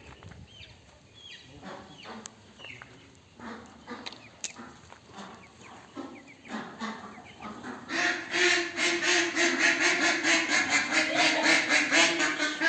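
Domestic ducks calling: scattered short high peeps at first, then from about eight seconds in a loud, rapid run of quacking, about five quacks a second.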